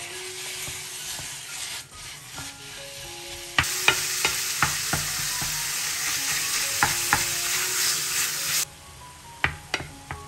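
Ground beef frying in olive oil in a stainless steel pan, sizzling as a wooden spatula breaks it up, with sharp scrapes and taps of the spatula against the pan. The sizzle gets much louder about three and a half seconds in and drops back about five seconds later, with faint background music under it.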